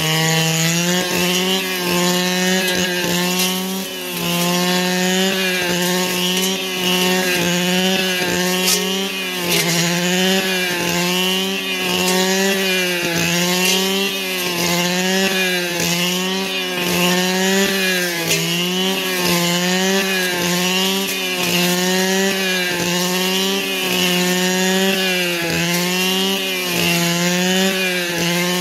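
Two-stroke brush cutter running at high revs, its engine note dipping and recovering about every second and a half as the head swings through the cut.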